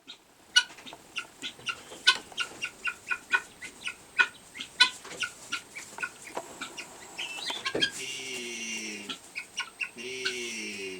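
Guinea hen calling while laying an egg: a quick run of short, sharp clucks, about three a second, then from about eight seconds in two longer, harsh calls that fall in pitch. These are odd sounds for a guinea hen.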